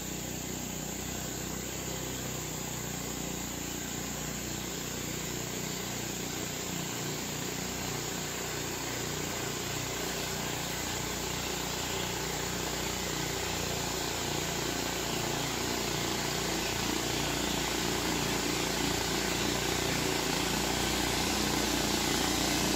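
Motorboat engine droning steadily and growing gradually louder as the boat comes up the river.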